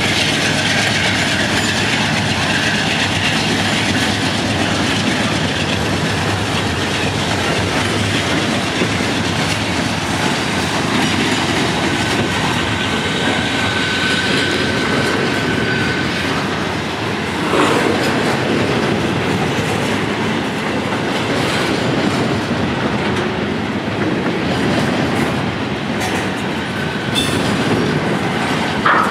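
CSX double-stack intermodal train rolling past close by: a steady rumble of loaded well cars with wheels clicking over rail joints. A thin wheel squeal rises for a few seconds partway through, and there are two louder clunks, one about halfway and one near the end.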